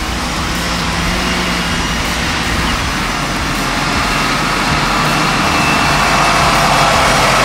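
John Deere 8370RT tracked tractor and Fendt 933 Vario wheeled tractor running together under heavy load, each pulling a loaded 20-ton grain-cart trailer. Their diesel engines grow steadily louder as they come closer.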